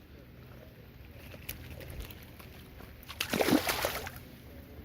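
Steady rush of creek water in the rain, with a louder sloshing splash lasting about a second, a little past three seconds in.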